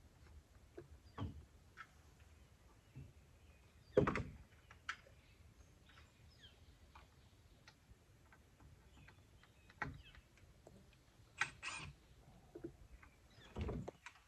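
Scattered knocks and clicks of plastic drain pipe and fittings being handled and fitted together, with the loudest knock about four seconds in.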